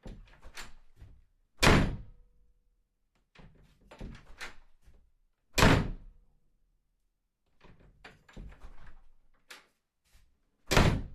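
A door opened and shut three times: each time a cluster of quieter clicks and rattles, then a loud knock as the door closes against its frame.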